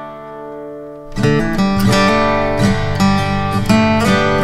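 Background music on acoustic guitar: a chord rings out and fades, then plucked strumming picks up again about a second in.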